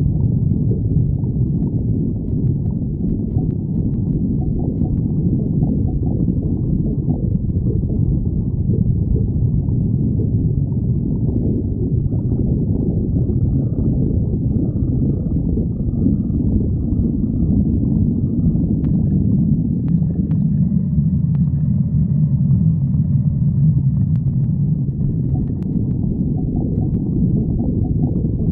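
A person's stomach growling: a continuous low rumbling and gurgling, with faint higher squeaky gurgles through the middle stretch.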